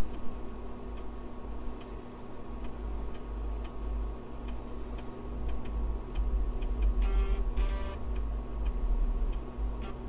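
Floppy disk drive reading files during a DOS copy: a steady machine hum with faint ticks from the drive head, and a short buzzing burst of the head stepping to a new track about seven seconds in.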